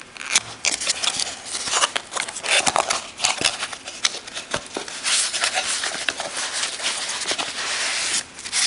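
A cardboard product box opened by hand: fingers prying at the flap give clicks and scraping, then a longer, steadier rustling scrape near the end as the white foam packing insert is slid out.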